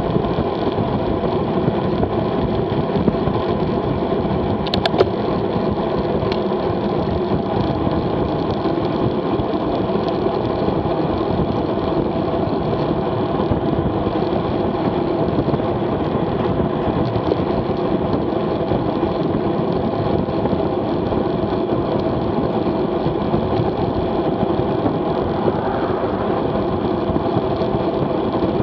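Steady wind and road noise on a bike-mounted action camera's microphone while riding at about 21–25 mph, with the hum of tyres on asphalt. One sharp click about five seconds in.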